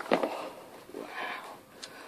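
Handling noise from a large soft-vinyl whale figure being moved about by hand: a sharp knock at the start and a small click near the end, with a brief wordless murmur of voice in between.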